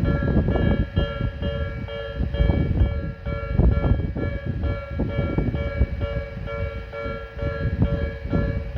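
Japanese railway level-crossing warning bell ringing its steady repeating two-tone alarm while a train passes over the crossing, with the low rumble of the train and the clatter of its wheels across the rails.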